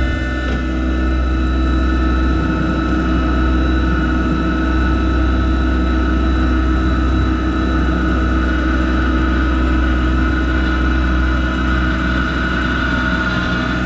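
Yanmar SA324 compact tractor's diesel engine running steadily, with a steady high whine over it.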